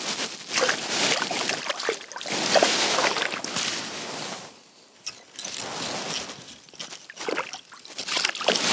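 Splashing and sloshing of water in an ice-fishing hole as a hooked brook trout thrashes on the line, in uneven spells, with a louder burst near the end as the fish is drawn up out of the hole onto the ice.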